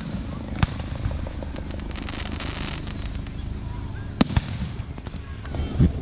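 Aerial firework shells bursting with several sharp bangs, the loudest about four seconds in, with a crackling hiss of burning stars around two seconds in, over a low rumble.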